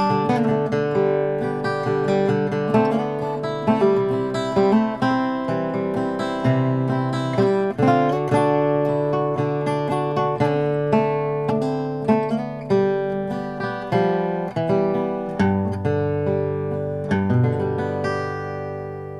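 Acoustic guitar music, a run of plucked and strummed notes; the last chord rings and fades away near the end.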